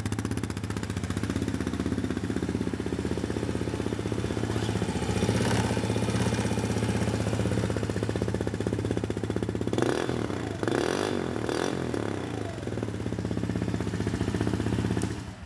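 A 2016 Polaris Outlaw 110 quad's small fuel-injected 110cc engine idles steadily, heard close at its muffler. About ten seconds in, its pitch briefly rises and falls. It stops running just at the end.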